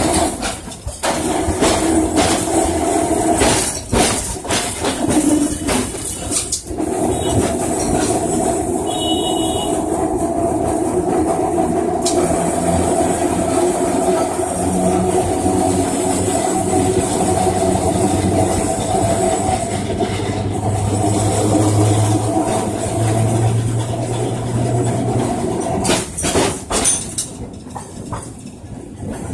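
Calcutta electric tram running on its rails, heard from inside the car: a steady rumble and rattle of wheels and body, with scattered knocks over the track and a brief high tone about nine seconds in. It grows quieter near the end.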